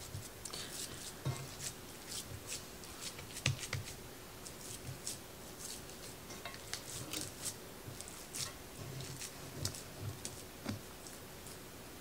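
Hands pressing and patting a raw ground-beef meatloaf mixture into a loaf in a cast iron skillet. The sound is quiet, scattered squishing with light taps and clicks.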